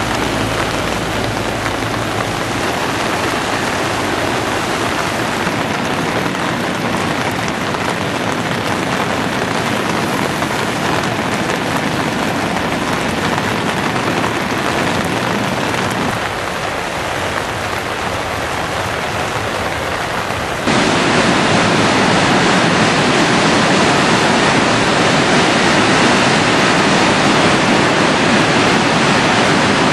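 Steady rush of a waterfall in heavy flood. About two-thirds of the way through it cuts suddenly to a louder rush of water.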